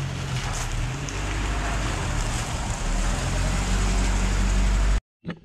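1989 Toyota pickup 4x4's engine running as the truck drives slowly past, a steady low engine hum under an even rushing noise. The sound cuts off abruptly near the end.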